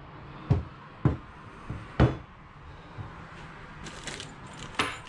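A cast turbo exhaust manifold knocking against a wooden workbench as it is turned over and set down: several separate knocks, the loudest about two seconds in.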